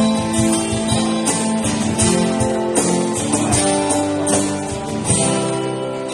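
Music led by a guitar, with strummed chords.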